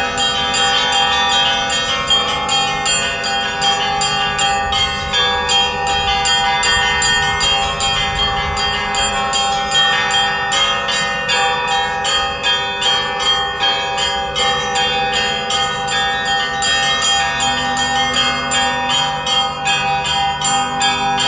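Russian Orthodox festive church bell ringing (trezvon): several bells of different pitches struck in quick, overlapping rhythm, with small bells ringing rapidly over the sustained hum of deeper ones.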